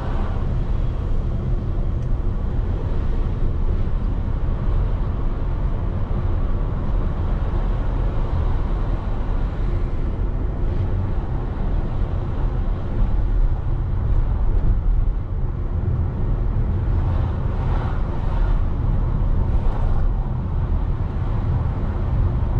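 A vehicle driving on city streets: a steady low engine hum with road noise, with a slightly louder rush of noise about three-quarters of the way through.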